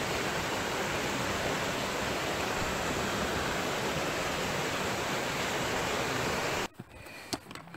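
Steady rush of water pouring over a small stone weir in a stream. It cuts off suddenly near the end, leaving a few sharp clicks.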